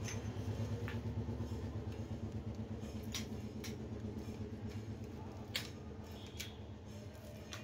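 Screwdriver working inside a marble cutter's motor housing, giving a few short sharp clicks and taps against the casing and field coil, heard over a steady low hum.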